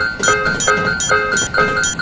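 Japanese-style railroad crossing warning bell ("kan-kan") ringing in a steady, even rhythm, a little over two strikes a second.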